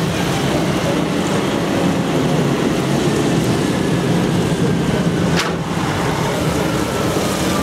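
Heavy trucks' diesel engines running as the trucks drive slowly past on wet tarmac, with a short sharp hiss about five and a half seconds in.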